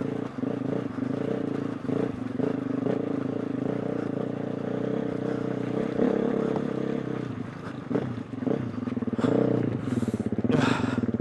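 A 2020 KTM 350 EXC-F's single-cylinder four-stroke engine running at low revs as the dirt bike is ridden through thick mud. The revs rise and fall under throttle, with louder pulls around nine to ten seconds in.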